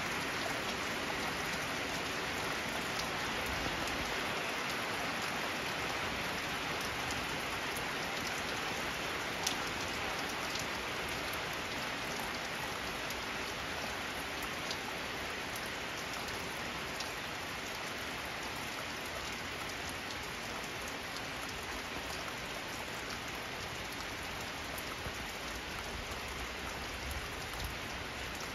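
Heavy rain falling steadily on the ground and nearby surfaces, a dense even hiss with now and then a single sharper drop landing close by. It eases a little toward the end.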